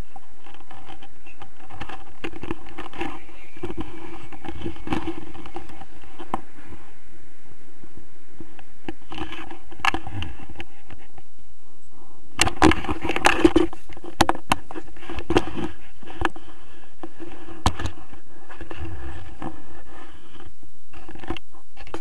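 Wind buffeting the microphone of a camera on a tandem paraglider's risers as it comes in to land. About halfway through there is a short burst of scraping and clattering knocks from the harness and gear around touchdown.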